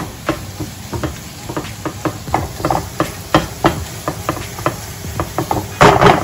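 Spatula tapping and scraping against a frying pan while julienned vegetables are stirred and turned, a few irregular knocks a second over a faint sizzle. A louder clatter of knocks comes near the end.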